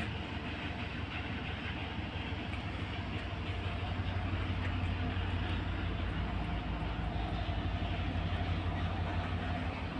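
Ship's engines and machinery droning steadily with a low hum, getting a little louder about four seconds in.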